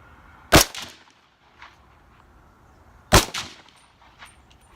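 Two shots from a 300 Blackout rifle, about two and a half seconds apart, each with a short echo. A few faint ticks follow them.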